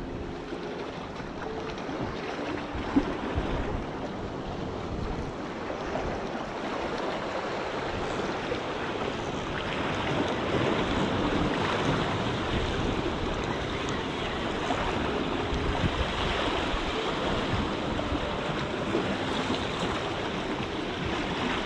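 Seawater washing against the jetty rocks, with wind buffeting the microphone; a steady rush that grows a little louder after about ten seconds, with a single short knock about three seconds in.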